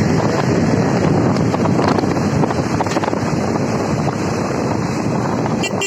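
Wind buffeting the microphone of a moving motorcycle: a steady loud rush, with the bike's running noise blended in beneath it. A few brief sharp clicks just before the end.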